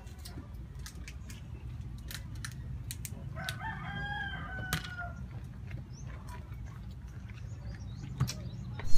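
A rooster crows once, a drawn-out call of about a second and a half beginning about three and a half seconds in, over a steady low rumble and scattered sharp clicks.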